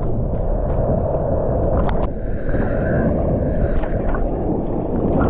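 Seawater sloshing and splashing right at a handheld action camera riding in the surf, with a steady low rumble and scattered sharp splash clicks.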